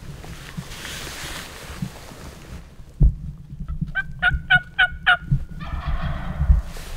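A Rio Grande wild turkey gobbler gobbling once, a fast rattling run of notes lasting about two seconds. A sharp thump comes just before it, and a low rumble runs underneath.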